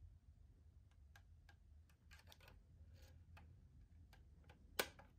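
Near silence over a low hum, with scattered faint clicks and taps and one louder click near the end.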